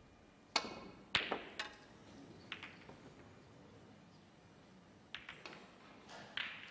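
Snooker cue striking the cue ball, then sharp clacks of balls colliding as it runs into the pack of reds and the reds split, most of them in the first two seconds, with a few more scattered clicks about five and six seconds in.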